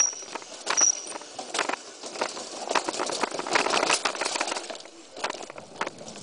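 Mountain bike rattling and clattering as it rides over stone paving, with irregular sharp knocks from the bike. There are two short high squeals in the first second.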